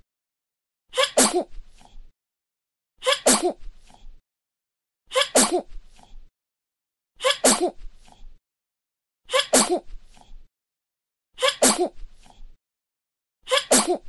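A baby sneezing: the same short recorded sneeze repeats about every two seconds with silence between, seven times.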